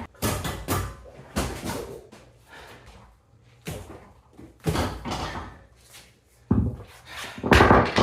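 Irregular knocks and clunks, about eight of them with uneven gaps and the loudest near the end, from working on a stuck CV axle with tools.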